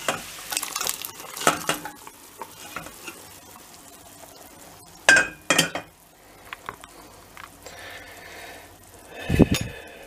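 Fried beef cubes tipped from a steel pot into a steel pot of boiling broth, with scraping and clinking of the steel pots in the first couple of seconds and a loud clank of metal about five seconds in. The broth bubbles at a boil between these, and there is a dull thump near the end.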